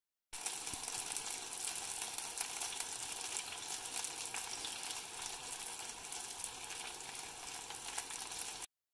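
Oil sizzling as chickpea-flour (besan) pakora fritters deep-fry in a pan: a dense, steady hiss full of small crackling pops. It starts suddenly just after the start and cuts off abruptly near the end.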